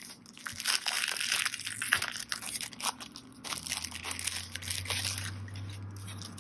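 Clear plastic packaging bag crinkling as it is handled and opened, with die-cut cardstock embellishments rustling and sliding out onto a table, busiest over the first few seconds.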